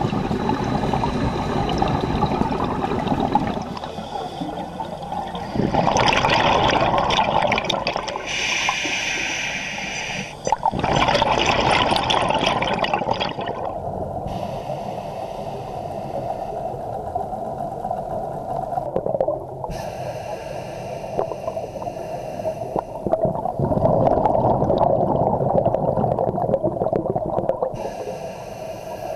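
Scuba diver breathing through a regulator underwater, heard through the camera's underwater housing: several loud gurgling rushes of exhaled bubbles, with quieter stretches between.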